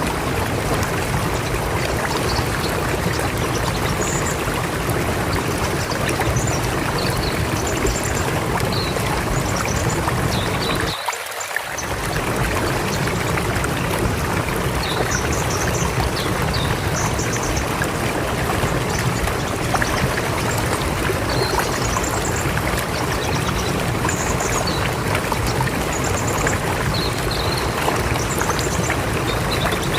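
River water flowing in a steady rush, with short high chirps, likely small birds, scattered over it. The low part of the rush drops out for about a second around eleven seconds in.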